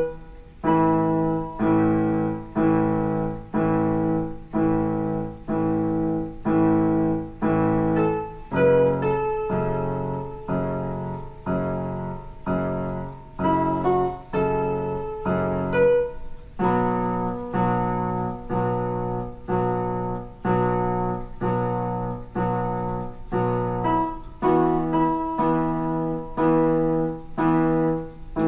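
Portable electronic keyboard on a piano voice, played in block chords: a chord struck about every three-quarters of a second, each dying away, with melody notes on top.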